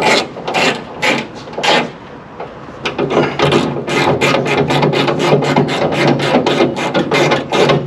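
Hand socket ratchet wrench clicking as it runs nuts down onto the hood scoop's mounting studs under the hood. A few slow strokes at first, then from about three seconds in a fast, even clicking of about four to five strokes a second.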